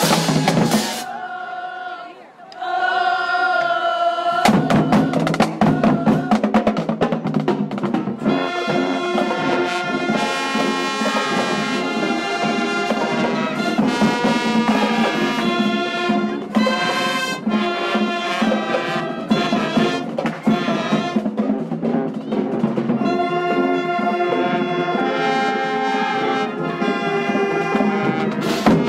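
Marching band playing: a drumline of snare, tenor and bass drums under sousaphones, trumpets, saxophones and clarinets. A few drum strikes open, followed by a brief lull with a few held notes, then the full band comes in about four seconds in and plays on with a steady drum beat.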